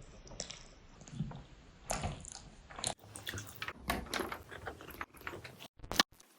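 Close-miked eating sounds: biting and chewing food, heard as short wet clicks and smacks that come sparsely at first and grow busy and sharper from about halfway.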